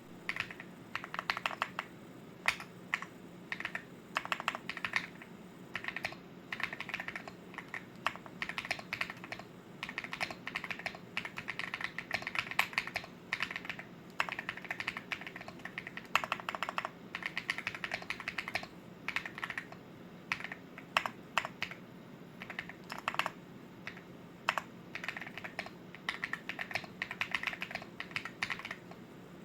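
Unmodded Leobog Hi75 mechanical keyboard with KTT Kang White linear switches and BOW-style replica keycaps being typed on: fast runs of keystrokes in bursts of a second or two with short pauses between, and now and then a single louder stroke.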